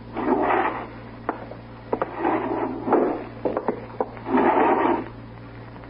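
Sound effect of wooden bureau drawers being pulled open and slid shut: three scraping slides with short knocks between them.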